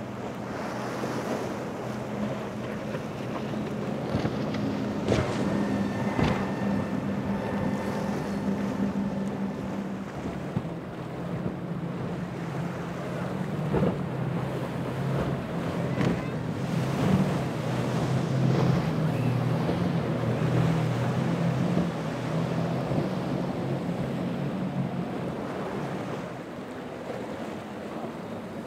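Powerboat engines running, with waves splashing and wind buffeting the microphone.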